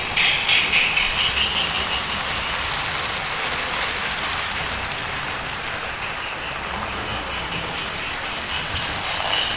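O-gauge Lionel and Marx toy trains running on three-rail track: a steady whir of the electric motors and rattle of wheels on the rails. The sound is louder at the start, eases off in the middle and grows again near the end as an engine comes close.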